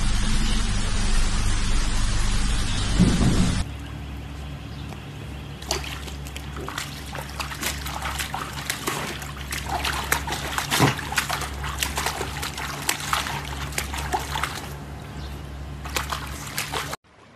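A steady loud hiss that cuts off suddenly about three and a half seconds in, then pool water splashing and sloshing in many small irregular splashes as a golden retriever swims and another paws at the water from the pool edge.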